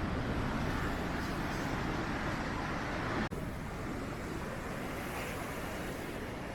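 Strong wind buffeting the microphone over a steady rushing noise, broken for an instant about three seconds in.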